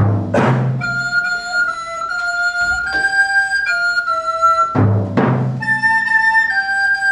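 Music: a slow melody of long held wind-instrument notes over occasional deep drum strokes, one at the start and another about five seconds in.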